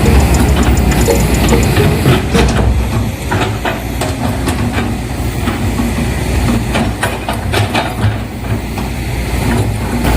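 Model machinery running steadily with a hiss and scattered sharp clicks.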